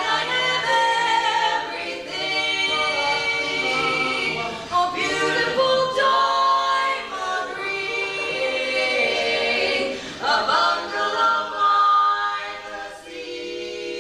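Barbershop-style a cappella singing, several voices holding close-harmony chords in sustained phrases with short breaks between them.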